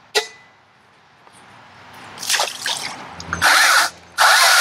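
Stihl battery-powered electric chainsaw running in short bursts, starting about two seconds in, with a sharp click near the start. The last burst is the loudest and runs on past the end, its whine dipping and wavering in pitch as the chain cuts into a branch.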